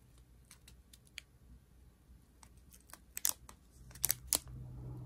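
A strip of small plastic zip-lock bags of square diamond-painting drills being handled: scattered light clicks and plastic crinkles. The sharpest clicks come in a cluster about three to four and a half seconds in.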